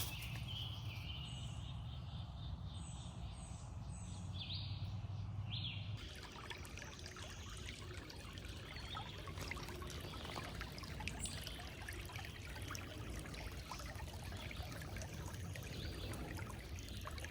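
Songbirds calling in short repeated notes over a low steady hum; about six seconds in the sound changes abruptly to a small creek trickling and splashing steadily over rocks.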